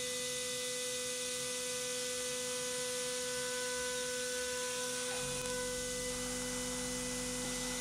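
High-frequency CNC milling spindle spinning freely at about 15,000 RPM with a steady whine, not cutting. About five seconds in, a lower hum joins.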